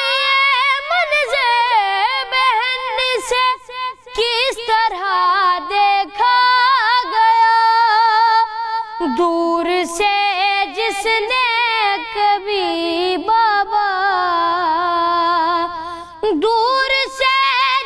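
A ten-year-old boy singing a noha, a Shia lament, solo in a high voice. He draws out long ornamented notes that glide and waver between held pitches, with short breaks about four seconds in and near the end.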